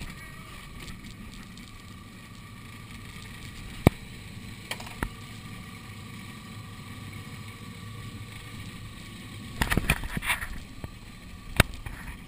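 Small jon boat's motor running steadily, a low rumble with a faint steady whine over it. A few sharp knocks cut through: a loud one about four seconds in, a burst of clattering around ten seconds, and another loud knock near the end.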